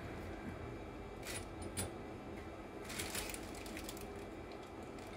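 A few faint, short clicks and clinks of small parts being handled, over a low steady background.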